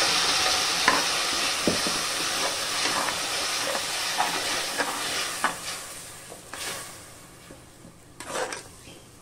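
Wet ground tomato paste sizzling in hot oil in a pressure cooker, loud at first and dying down over several seconds. A steel ladle scrapes and knocks against the pot as the paste is stirred.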